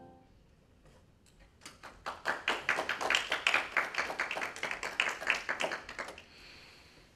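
A small audience clapping, starting about a second and a half in and stopping about six seconds in.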